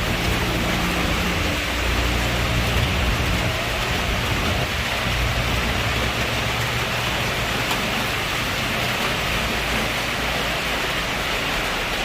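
Heavy rain falling steadily, a dense even hiss with a low rumble underneath.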